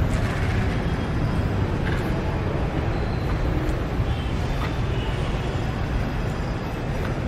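Airport terminal concourse ambience: a steady low rumble with no single clear event.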